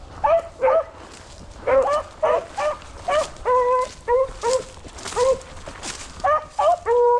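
Beagle hounds giving voice on a track: a run of short, repeated yelping bays with a few longer, drawn-out howls, starting about a quarter second in.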